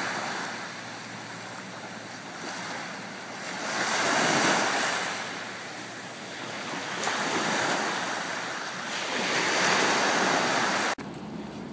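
Small waves breaking and washing onto a sandy shore, the surf swelling and fading in slow surges every two to three seconds. Near the end it drops abruptly to a quieter hiss.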